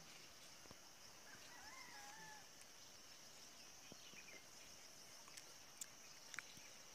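Near silence: faint outdoor ambience with a steady high insect drone. A brief faint bird call comes about a second and a half in, and a couple of faint clicks come near the end.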